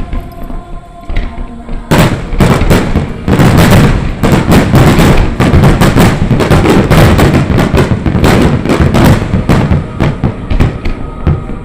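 Large aerial fireworks barrage of the Nagaoka 'Phoenix' display: a few scattered bangs, then from about two seconds in a dense, continuous run of overlapping booms and crackles that thins out near the end. Music plays underneath.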